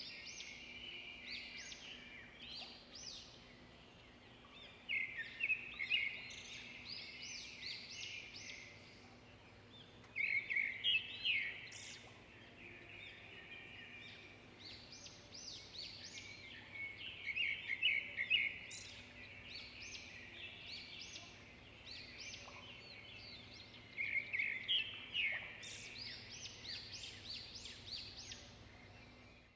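Small birds chirping and twittering in repeated clusters of quick high calls every few seconds, over a faint steady low hum.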